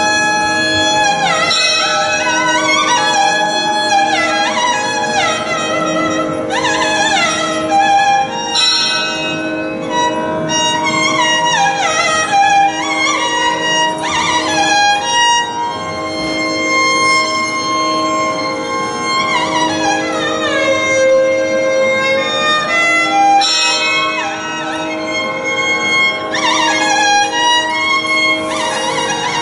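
Carnatic violin playing flowing raga phrases in Lathangi, full of sliding, bending ornaments, over a steady drone, with no drum.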